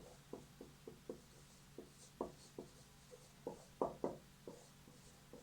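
Handwriting: faint, irregular short taps and strokes of a pen or marker, about fifteen over five seconds, with a few louder ones in the middle.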